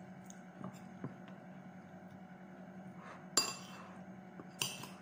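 Ceramic dishes clinking as a bowl is knocked and shifted on the counter: two short clinks a little over a second apart in the second half, over a low steady hum.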